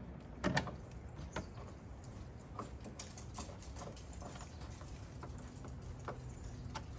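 Hand screwdriver driving a screw through a plastic frunk bin into its mounting bracket: scattered light clicks and ticks of the tool and bin, with a sharper knock about half a second in, over a low steady hum.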